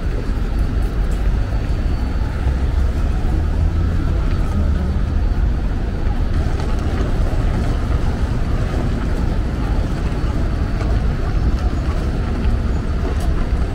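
Steady low rumble of busy city road traffic, continuous and without distinct events.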